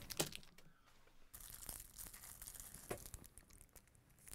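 Chocolate bar wrapper being torn open and crinkled by hand, faint, with a few small clicks.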